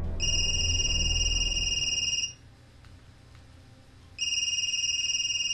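Mobile phone ringing: two rings of a steady, high electronic tone, each about two seconds long, the second starting about four seconds in.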